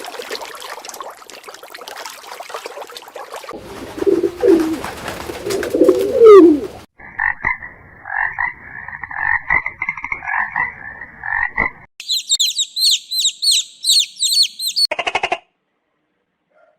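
A string of different animal recordings cut one after another. First comes a crackling, rustling noise with low, sliding calls that peak loudly about six seconds in. Then comes about five seconds of rhythmic frog croaking, then rapid, repeated high bird chirps.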